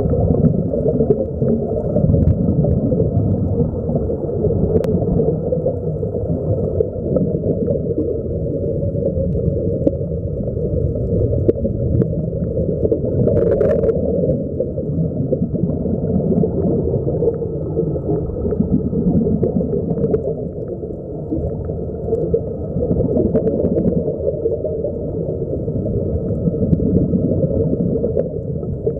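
Steady, muffled underwater rumble with gurgling of air bubbles from sea-walker diving helmets, heard with the microphone underwater. A brief higher hiss about halfway through.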